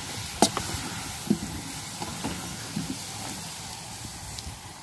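Vegetables sizzling in a wok while a wooden spatula stirs them, with several sharp knocks and scrapes against the pan in the first few seconds. The stirring stops near the end, leaving a steady sizzle.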